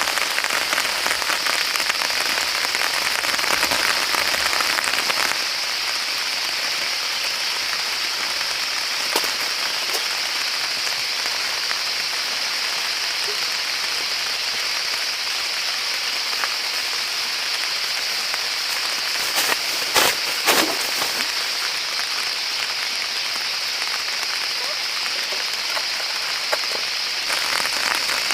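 Steady rain falling, with a few louder knocks about two-thirds of the way through.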